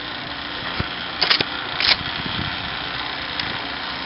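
Two sharp shotgun bangs about a second and a half in, roughly half a second apart, over a steady background hum.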